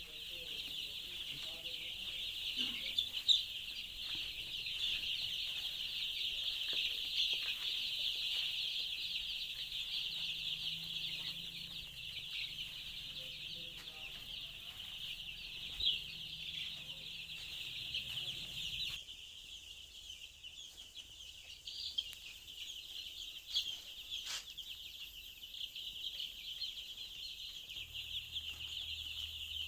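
A brooder full of five-day-old crossbred chicks peeping continuously, a dense chorus of high chirps, with a few sharp clicks, the loudest about three seconds in.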